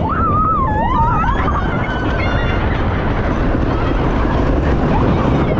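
Wooden roller coaster train running along its track, heard from the front seat: a steady, loud rumble of wheels on the rails, mixed with rushing wind on the microphone.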